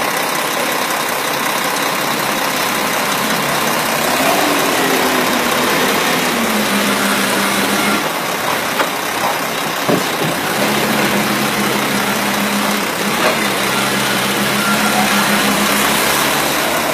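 LPG-fuelled Toyota forklift engine running, its pitch rising and falling as it revs. There is a single sharp knock about ten seconds in.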